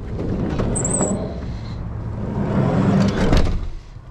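Ram ProMaster van's sliding side door being unlatched and rolled open on its track, with a brief high squeal about a second in, then a loud clatter and clunk about three seconds in as it is pulled shut.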